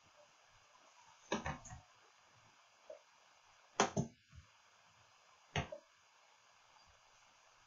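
Three short wet gulping swallows from a human throat, about two seconds apart, each a quick cluster of clicks, over a faint steady hiss.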